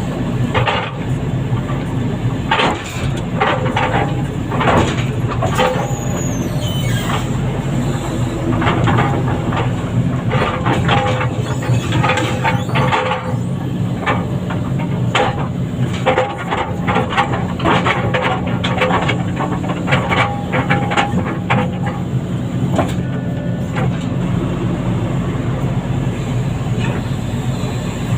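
Heavy diesel machinery running steadily, with repeated irregular metal clanks and knocks and a brief high squeal about six seconds in.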